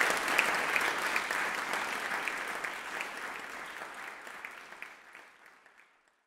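Audience applauding: a dense clatter of hand claps that thins and fades out over the last few seconds.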